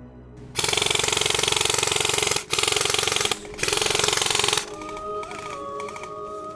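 Airsoft electric gun firing on full auto in three bursts: a long one, a short one, then another of about a second, each a fast, loud mechanical rattle. Background music comes back after the last burst.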